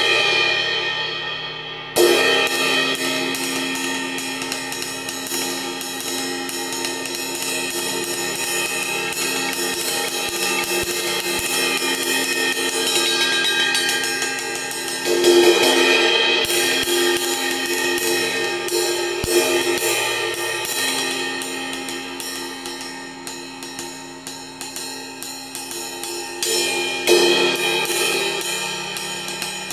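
An 18-inch Zildjian K Dark Crash, medium thin, with no rivets fitted, played with a wooden drumstick in simple beats. Steady stick strokes ride over its sustained wash, with louder crashes about two seconds in, around the middle and near the end.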